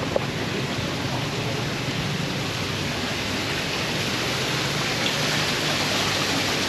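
Steady rushing hiss like running or falling water, growing slightly louder in the second half.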